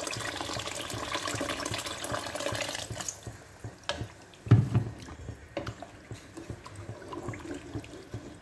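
Water poured in a steady stream into a pot of gravy, stopping about three seconds in. Then a metal spoon stirring the pot, with a few knocks against it, the loudest a low thump about halfway.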